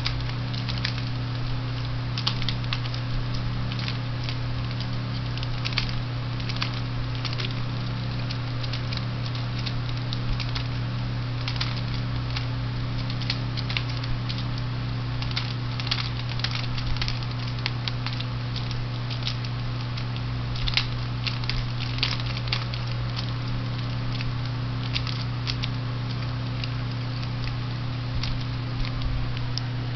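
Irregular light plastic clicks and rattles from a Power Rangers Samurai Red Ranger action figure being twisted and spun by hand, over a steady low hum.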